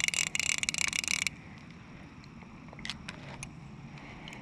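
Fly reel's clicker ratcheting in a fast, buzzing run as the spool spins, cutting off abruptly after about a second, followed by a couple of faint single clicks.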